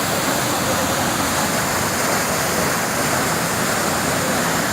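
Waterfall: a steady, loud rush of falling water, unbroken throughout.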